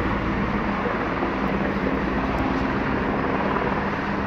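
Helicopter overhead, a steady loud drone with a constant hum.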